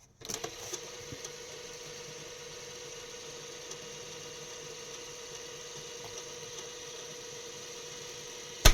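Sony CFS-1000L radio-cassette recorder giving out a steady hiss and a faint steady hum, with no music. There are a few small clicks in the first second and one sharp click near the end.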